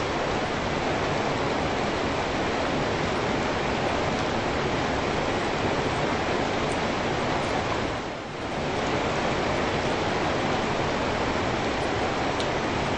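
Steady rain falling, an even hiss of drops, with a brief dip in level about eight seconds in.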